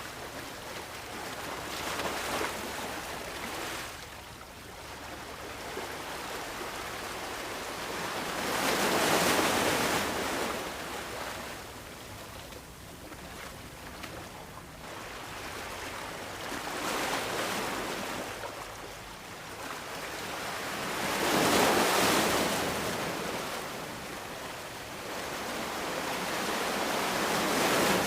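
Small ocean waves breaking and washing up a sandy beach, each one swelling and then receding, about every five to eight seconds.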